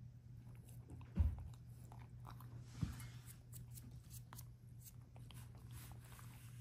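A small dog eating from a stainless steel bowl: quiet chewing and crunching with many small clicks, and two dull knocks, about a second in and near three seconds.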